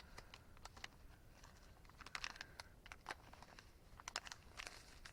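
Faint crinkling and clicking of plastic packaging being opened and handled, in scattered short bursts.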